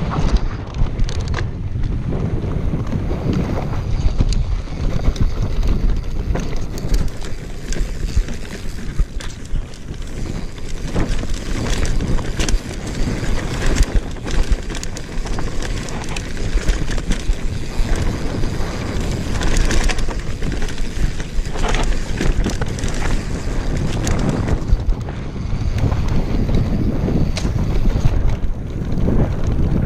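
Wind buffeting the microphone as a mountain bike rides fast down a dry dirt singletrack, with steady tyre rumble and many sharp rattles and knocks from the bike over bumps.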